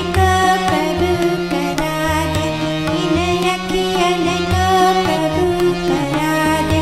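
Music from a Hindi devotional song: a wavering melodic line over a held low note and a regular drum beat.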